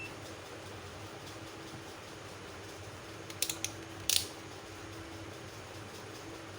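Small hand-tool work on a microwave's control board: three quick light clicks, then a sharper click about a second later, over a faint steady hum.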